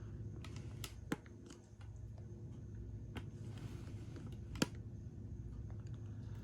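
Scattered light plastic clicks from a hand-cranked K'Nex Zipper ride model turning on its rubber-band pulley drive, with one sharper click about two-thirds of the way through, over a steady low hum.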